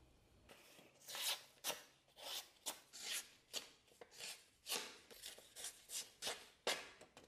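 A restored meat cleaver's sharpened steel edge slicing through a sheet of paper in a quick series of short rasping cuts, about three a second, starting about a second in: a paper-cutting test of the edge's sharpness.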